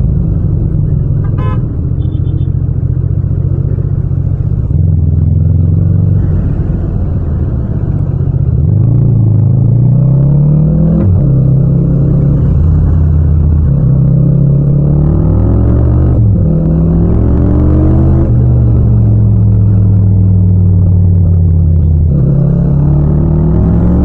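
Yamaha MT-07's parallel-twin engine running under way, rising in pitch several times as it accelerates through the gears and dropping back when the throttle closes, with steady cruising stretches between.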